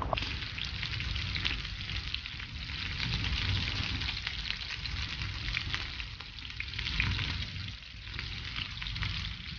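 Leg of lamb sizzling on a wire grill over a charcoal fire, a steady hiss with many fine crackles as fat renders and drips onto the coals.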